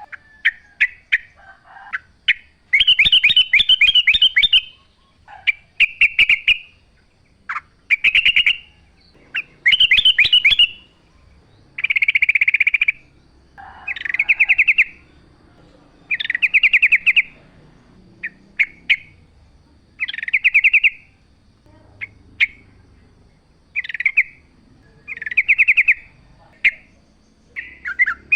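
Yellow-vented bulbul (trucuk) singing a loud series of short, bubbly, rapidly warbled phrases, one about every one to two seconds.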